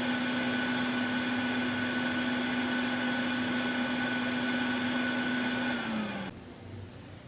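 Quick 861D+ hot air rework gun's blower fan running steadily with a hum, then winding down and stopping about six seconds in as the docked handpiece shuts off.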